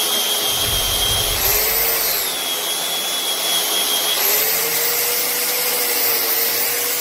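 Angle grinder with a sanding disc grinding the steel of an axe head, a loud steady motor whine over a gritty grinding hiss. The whine dips in pitch briefly near two seconds in and rises again about four seconds in.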